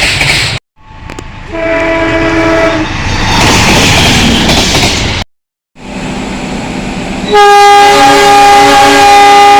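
Diesel locomotive horns sounding the driver's Semboyan 35 horn signal, in a string of short clips split by abrupt cuts. A horn blast breaks off half a second in. A short multi-tone blast comes about 1.5 s in, followed by the rumble and wheel clatter of a passing train. A long, loud chord of a horn starts near the end.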